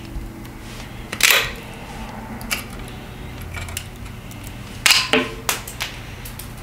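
Cable cutters snapping through a bicycle's rear shift cable housing: two sharp snaps, about a second in and again near five seconds, the second followed by a few smaller clicks.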